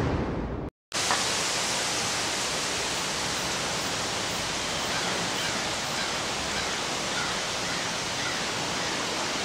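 A steady, even rushing noise, starting abruptly about a second in after a brief silence.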